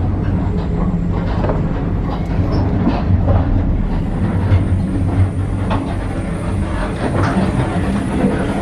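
Indian Pacific passenger train running, heard from inside a carriage corridor: a steady low rumble and hum, with scattered clicks and rattles.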